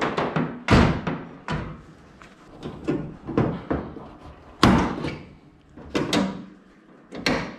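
Sharp metal knocks on the aluminium floor bracing of a jon boat, about eight irregular strikes, each with a short ring after it, while a rivet is being set to tie a vertical support to the floor.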